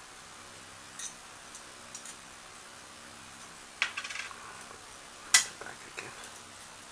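A metal terminal rod and nut clinking against the metal plates of an HHO electrolysis cell as they are fitted by hand: scattered light metallic clicks, a short rattle about four seconds in, and the loudest click a second or so later.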